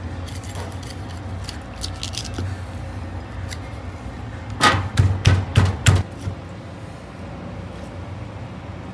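A steady low hum with a few faint clicks, then a quick run of about five sharp knocks or clatters about halfway through.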